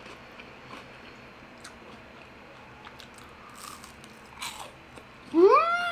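Quiet chewing and crunching of crispy Korean fried chicken, with scattered small crunches. Near the end comes a loud drawn-out call that rises and then falls in pitch.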